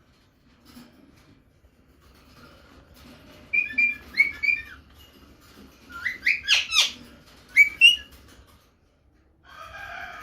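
Indian ringneck parakeet giving short, shrill whistled calls in several bursts. The loudest is a quick cluster of sharp, falling calls a little past the middle, and a harsher call comes near the end.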